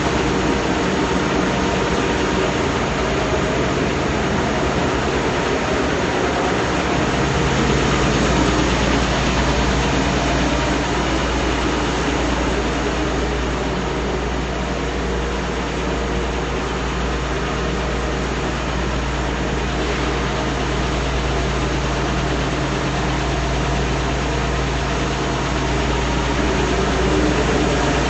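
Large industrial sander running steadily with a low hum while skateboard decks are fed through it for sanding passes; the low hum grows stronger about seven seconds in.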